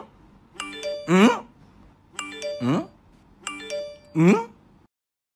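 A short looped jingle: a doorbell-like chime figure followed by a quick rising sliding tone, repeated four times about every second and a half. It cuts off suddenly about five seconds in.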